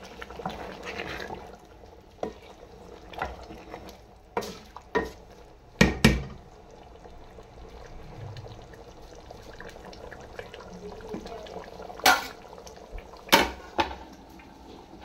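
Pot of chicken korma simmering with a steady low bubbling hiss, broken by sharp metal clanks of cookware being handled: a few light knocks, a loud double clank about six seconds in, and two more clanks near the end as a steel pot is moved.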